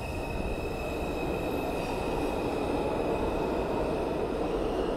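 R142 subway train pulling out of the station and running away down the tunnel: a steady rumble of wheels and traction motors, with a thin high squeal that fades away.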